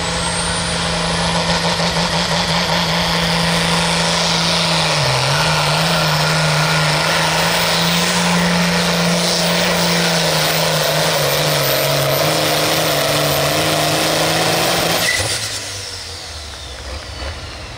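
Turbocharged pro field pulling tractor running flat out under load down the track, its engine note holding steady with a few brief dips in pitch and a high turbo whistle over it. About fifteen seconds in the throttle comes off suddenly: the engine drops back to a much quieter run while the whistle falls away as the turbo spins down.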